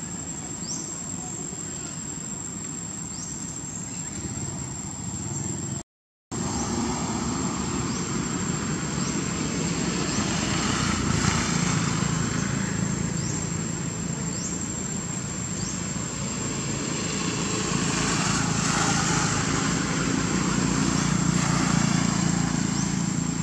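Outdoor ambience: a steady high insect whine with short rising chirps every couple of seconds over a low rumble like traffic, cut off briefly about six seconds in.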